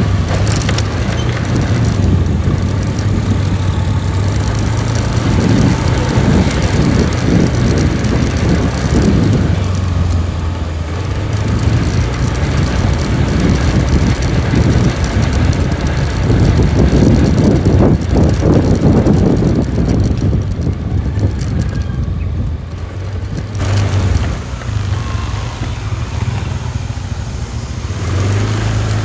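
A motor vehicle running: a steady low engine hum that shifts a little in pitch now and then, under rough road and wind noise.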